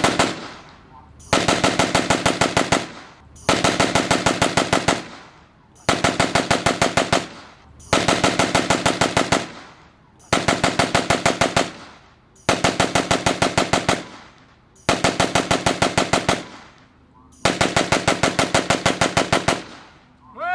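Original WW2 Vickers machine gun, converted to fire on gas, firing eight short bursts of rapid shots, each about one and a half to two seconds long with short pauses between. A brief rising-and-falling tone sounds right at the end.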